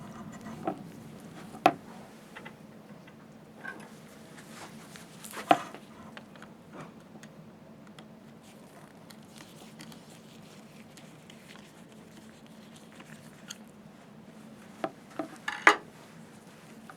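Sparse small clicks and knocks of hands handling a cable and the metal tubes of a slit lamp chinrest as the cable is fed through, with a short cluster of knocks near the end, over a faint steady hum.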